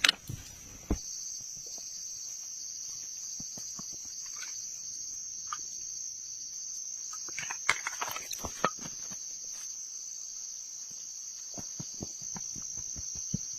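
Steady, high-pitched chorus of insects such as crickets, with scattered light clicks and knocks, a cluster of them near the middle.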